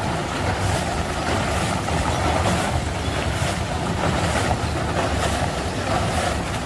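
Steady street traffic noise: a low engine rumble, with a high hiss that swells about once a second.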